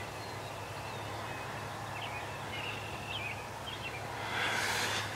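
Quiet field ambience under a low steady hum, with a few faint, short bird chirps about two to three seconds in and a brief rushing swell of noise near the end.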